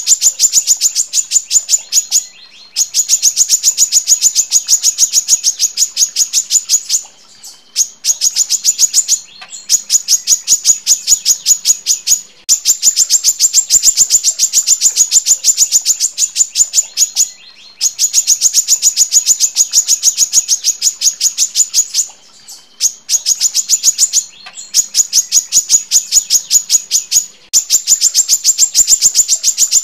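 Female brown-throated sunbird (kolibri kelapa) calling in long runs of rapid, evenly spaced, high-pitched notes, each run broken by a short pause every few seconds.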